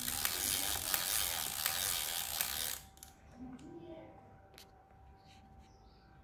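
Mechanism of a Yashica Mat 124G twin-lens reflex camera worked by hand: a dense ratcheting rattle for about three seconds that stops abruptly, then a few light clicks.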